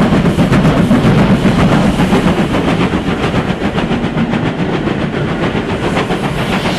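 OO gauge model train running on the layout's track, with fast, even clicking over a steady low motor hum.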